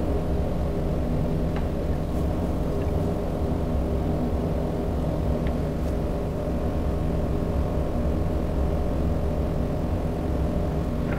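Steady low machine hum, like a ventilation fan or motor running, with a couple of faint light clicks.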